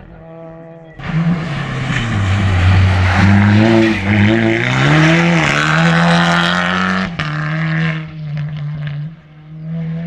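Rally car engine passing close by at high revs. The engine note drops low for a couple of seconds, then climbs in steps as the car accelerates through the bend. A sharp crack comes about seven seconds in, and the car then runs on more quietly.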